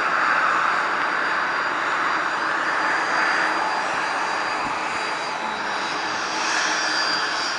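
Jet airliner's engines passing close overhead on approach: a steady rush of engine noise with a thin high whine that grows stronger in the second half.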